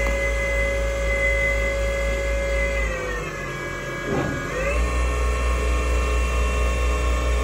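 GT27 CNC gang lathe's spindle drive running with a steady whine under flood coolant. About three seconds in the whine falls in pitch as the spindle slows, then a second or so later climbs to a higher steady pitch as the spindle speeds up again.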